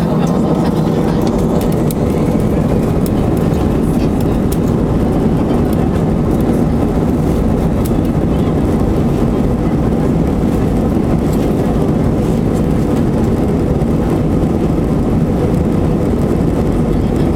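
Airbus A320 jet engines and rolling noise heard inside the passenger cabin as the airliner moves along the runway: a loud, steady low rumble with a few faint clicks.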